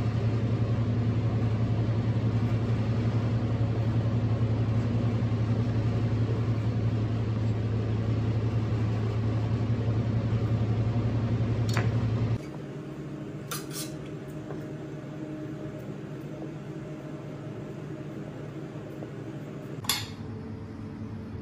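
Steady low machine hum of a kitchen, loud for the first half, then dropping abruptly to a quieter hum. A few sharp metal clinks, the loudest near the end, as a spoon knocks against a steel pan.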